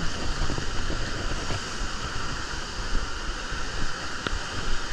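Water churning and rushing in a water slide's splash pool, close to the microphone, as a steady hiss and rumble.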